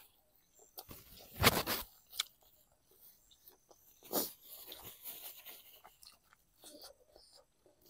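A person chewing crunchy food close to the microphone: loud crunching bites about a second and a half in and again around four seconds, then softer chewing.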